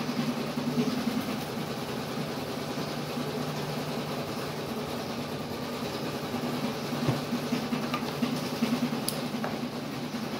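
A steady low mechanical hum, with a few light knocks about two thirds of the way through and again near the end.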